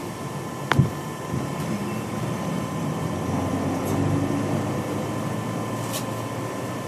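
Steady rumble of a moving train heard from inside the carriage, with a sharp knock about a second in and a couple of fainter clicks later.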